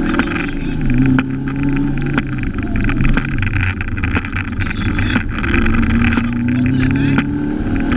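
Fiat Cinquecento 1400 rally car's engine heard from inside the cabin, revving up hard and dropping back several times as it changes gear and lifts between corners, with scattered sharp clicks over the road noise.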